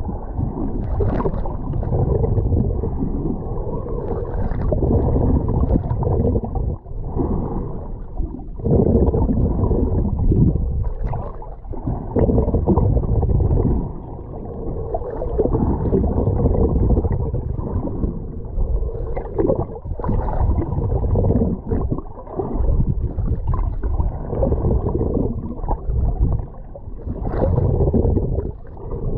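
Sea water heard muffled and rumbling, swelling and falling every few seconds, with brief splashy spikes here and there.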